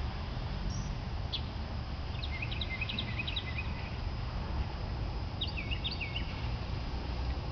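Small birds chirping: a quick run of high chirps about two seconds in, and another near the six-second mark, over a steady low rumble.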